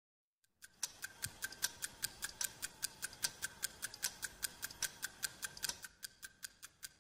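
Clock mechanism ticking fast and evenly, about five ticks a second, starting about half a second in and growing softer near the end.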